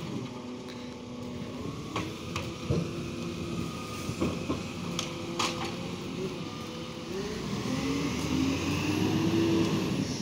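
Garbage truck's diesel engine running as the truck moves off, rising in pitch and getting louder from about seven seconds in as it speeds up. A few sharp knocks sound in the first half.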